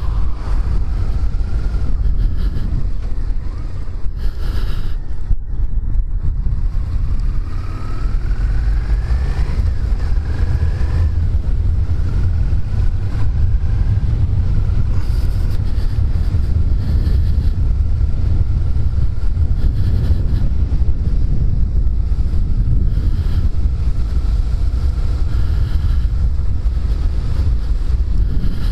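Wind buffeting a microphone inside a motorcycle helmet at riding speed, with the Suzuki SVF650 Gladius's V-twin engine running beneath it. The engine note rises about eight seconds in as the bike pulls away and accelerates.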